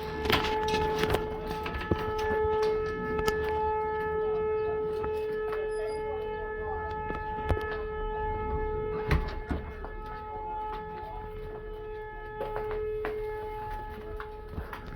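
Outdoor tornado warning siren sounding one long, steady tone with overtones, slowly growing quieter. A few sharp knocks are scattered through it.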